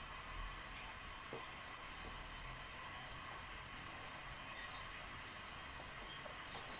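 Steady low background noise (room tone) with a few faint clicks.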